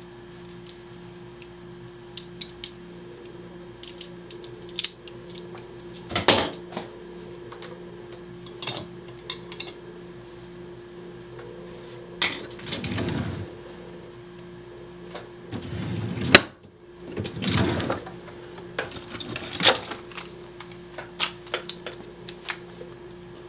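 Wooden desk drawer being worked open by hand: scattered clicks, knocks and rattles, with a few longer scraping slides of about a second each, over a steady low electrical hum.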